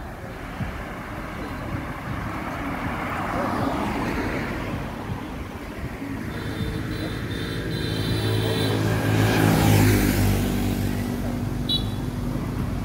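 Road traffic passing on a street, with one vehicle's engine growing louder, passing about three-quarters of the way in, then fading.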